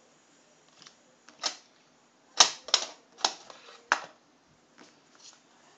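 Sharp clicks and snaps of playing cards being handled, about six in quick succession, loudest a little past the middle.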